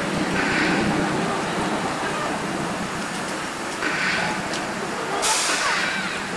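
Big Thunder Mountain Railroad mine-train roller coaster running on its track, a steady rumble and clatter, with a sudden hiss about five seconds in.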